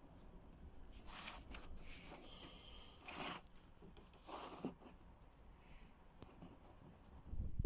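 Handling noise: four short rubbing, scraping swishes spread over several seconds, then a low thump near the end.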